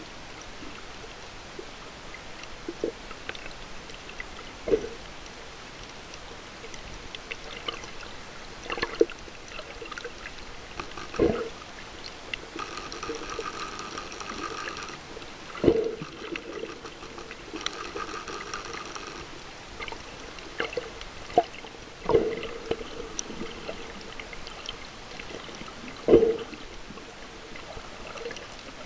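Underwater sound picked up by a snorkeler's camera: a steady wash of water with a dull thump every few seconds, and twice a faint high buzzing drone lasting a couple of seconds.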